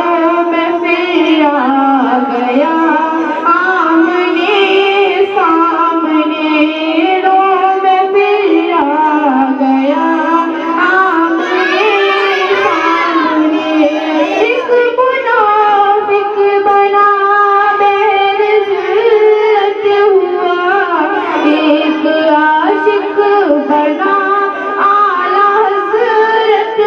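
A female voice singing a naat, an Islamic devotional song in praise of the Prophet, with long held and ornamented notes.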